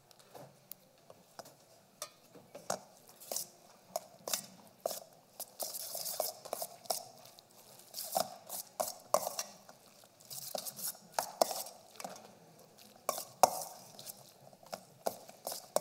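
A metal spoon stirring tuna salad (tuna, celery and mayonnaise) in a stainless steel mixing bowl: irregular clinks and scrapes of spoon against the bowl, with the loudest knock near the end.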